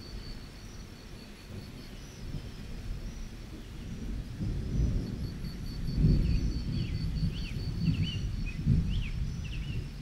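Thunder rolling low, swelling about halfway through into a couple of louder rolls. Crickets chirp in a fast even pulse, dropping out for a few seconds in the middle, and a few brief high chirps come in near the end.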